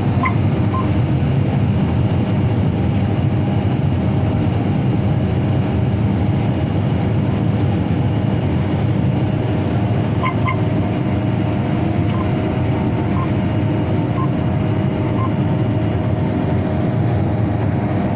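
Combine harvester running steadily while harvesting corn: a dense, even machine drone with a few faint short clicks over it.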